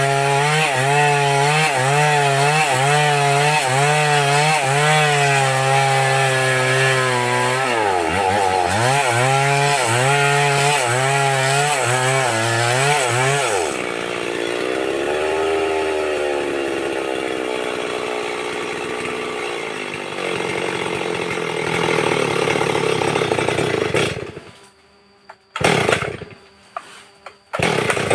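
An old chainsaw engine running hard while cutting wood, its pitch wavering up and down as the chain bites. About two-thirds of the way through the note drops and changes, and near the end it breaks into short bursts with quieter gaps between.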